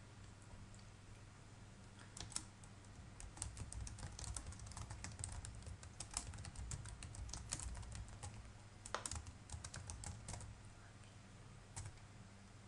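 Typing on a computer keyboard: a run of quick key clicks starting about two seconds in and stopping near the end, with one last click after a short pause.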